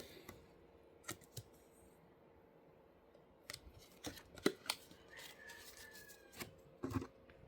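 Packaging and card-game handling noises: about eight sharp clicks and snips spread irregularly, with a faint brief squeak about halfway through.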